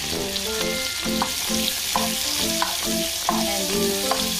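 Chopped onion frying in hot bacon fat in a pan, a steady sizzling hiss, with a tune of short pitched notes underneath.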